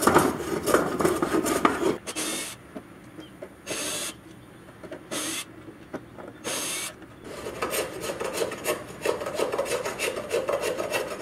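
Block plane shaving the edge of an oak plywood panel with quick rasping strokes. Then come four short hissing bursts about a second and a half apart, followed by rapid scraping strokes on wood.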